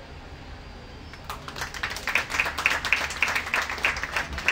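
Audience applauding: a roomful of people clapping, starting about a second in and carrying on as a quick, uneven patter of claps.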